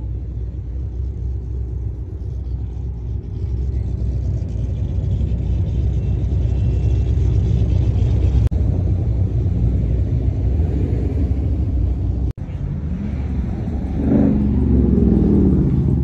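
Steady low rumble of car engines idling. Near the end it grows louder, with a pitch that wavers up and down.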